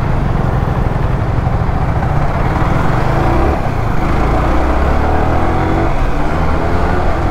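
Yamaha R15 motorcycle running steadily while being ridden, a constant low rumble with road noise.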